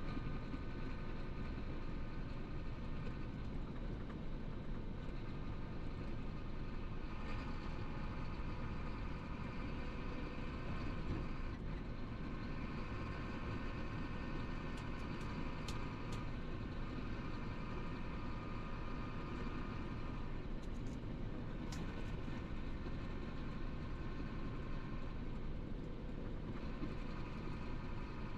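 Chenglong heavy truck cruising at speed, heard from inside the cab: a steady drone of engine and tyre noise with a faint whine over it.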